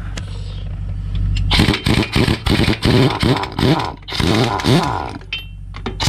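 Heavy 2,000-pound impact gun hammering in a run of short bursts, its pitch rising and falling with each pull, spinning off a dump truck's left-hand-thread lug nuts. It starts about a second and a half in. An engine idles underneath.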